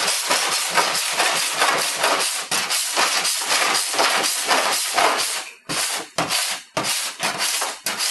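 Body file rasping back and forth across an aluminum body panel, filing off the remains of a welded-on pull nail after a dent pull. The strokes come fast and close together, then become shorter and separate from about five and a half seconds in.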